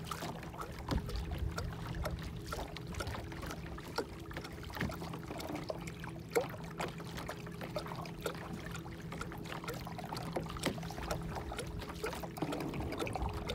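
Electric trolling motor on a fishing kayak running with a steady low hum, with water trickling and splashing against the hull in small irregular ticks.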